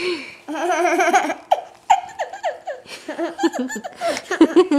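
Toddler laughing: a long warbling laugh, then a string of short high-pitched giggles.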